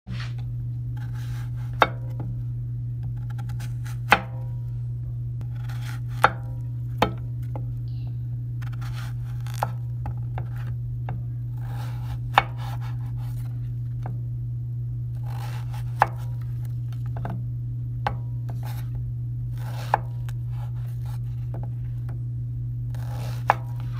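Knife cutting through zucchini on a wooden cutting board, the blade knocking sharply on the board about ten times, a few seconds apart. A steady low hum runs underneath.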